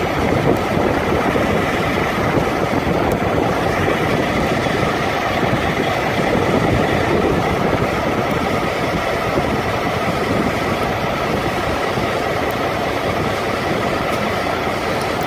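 Carrier Transicold XTC trailer refrigeration unit running steadily during its automatic pretrip test, its diesel engine and fans making a constant loud drone.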